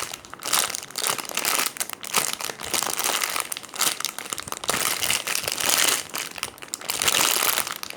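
Hands squeezing and handling a foam squishy toy, with irregular crinkly rustling throughout.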